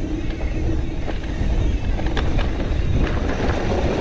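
Santa Cruz Megatower mountain bike riding down a dry, dusty dirt trail: steady rumble of tyres on loose ground and wind on the camera microphone, with a few sharp knocks and rattles from bumps.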